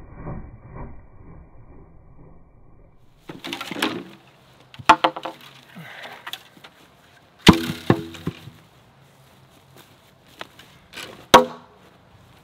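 Long bamboo poles knocking and clattering together with sharp, hollow clacks that ring briefly, as they are lifted and dropped: a few separate knocks, the loudest about seven and a half seconds in and another near the end. Before that, the first three seconds hold only a quieter low rumbling.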